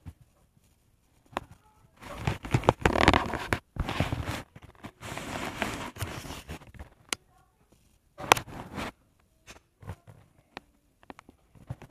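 Rustling, scraping handling noise on a tablet's built-in microphone as the tablet is moved and covered. It comes in three bursts, with scattered clicks between them.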